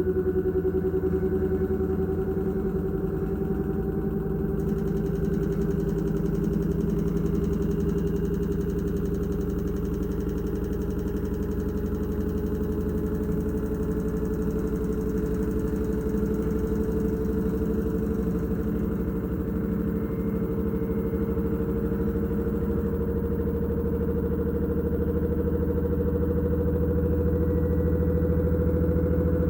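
LG F2DR5S8S6W direct-drive washer-dryer on its 1200 rpm spin cycle: the drum spinning with a steady low rumble and a motor whine that slowly rises in pitch as the spin speeds up.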